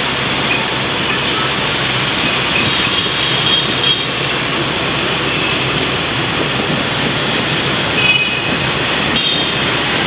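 Steady rushing noise of riding on a moped through city traffic: wind on the microphone with road and traffic noise.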